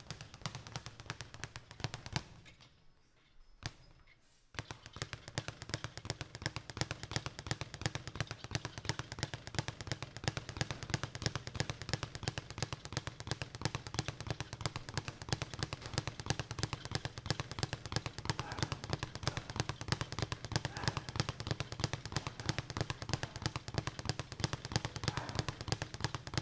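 Boxing speed bag being punched in a fast, steady rattle of hits. About two seconds in it pauses, with only a couple of single hits, then the rapid rhythm starts again about four and a half seconds in.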